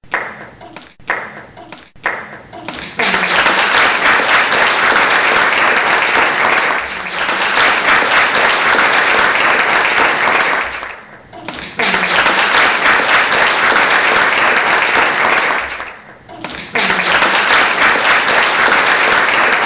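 Large crowd applauding: a few scattered claps at first, then dense, loud applause that dies away and swells up again twice.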